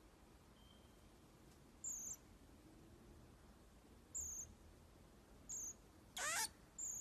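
Common marmoset calling: four short, high-pitched chirps spaced a second or two apart, and near the end one louder, longer call that wavers up and down in pitch.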